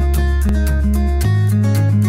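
Background music with a steady beat, short plucked melody notes over a held bass, and a bass note change a little past halfway.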